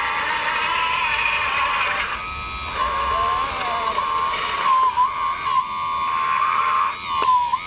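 High steady whine from the electric hydraulic pump of a 1/14-scale RC construction machine. Its pitch dips briefly several times, as the load on the hydraulics changes.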